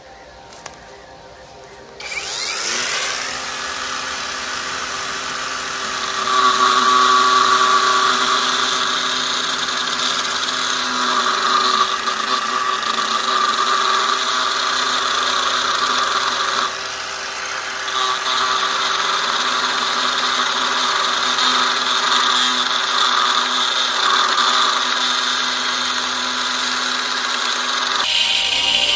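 Power tool starting up about two seconds in and running steadily as it cuts into a cast iron billet, louder under load from about six seconds in, with a brief dip near the middle.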